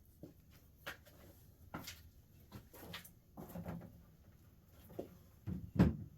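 Scattered clinks and knocks of hand tools and engine parts being handled on a workbench, with a heavier thump near the end.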